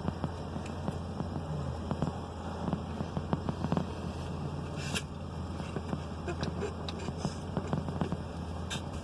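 A steady low hum with scattered small clicks, scrapes and rustles, one sharper click about five seconds in.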